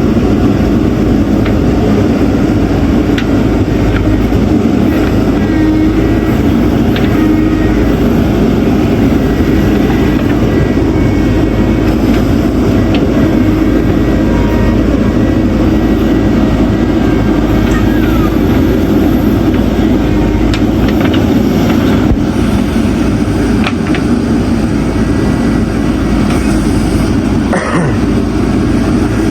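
Diesel engine of a JCB backhoe loader running steadily under load while it digs, with a few faint knocks.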